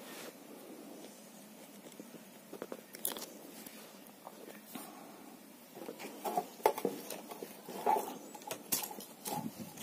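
Irregular clicks, crunches and scrapes as a pet turtle's shell is handled against a hand and cloth. They grow busier and louder in the last few seconds.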